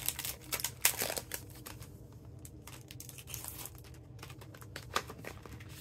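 Clear plastic stamp-set case being handled and opened, crinkling and clicking. The clicks and rustles are densest in the first second and a half, then fade to quieter rustling with a few light clicks about four to five seconds in.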